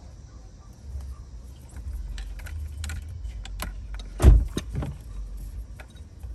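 Clicks, rattles and knocks of parts being handled and fitted around a car's steering wheel, with one heavy thump about four seconds in.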